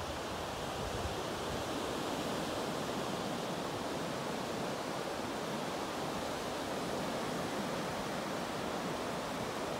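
Sea waves breaking and washing in over a sandy beach, heard as a steady, even rushing of surf.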